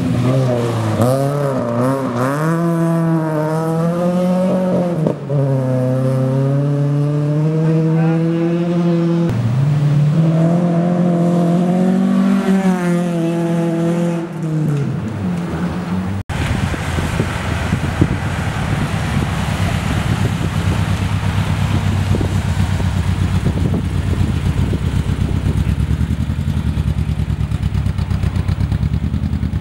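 Classic rally car engine revving hard, its pitch climbing and falling as it goes through the gears, with a short drop about five seconds in. About sixteen seconds in the sound cuts abruptly to a steady, lower engine running evenly.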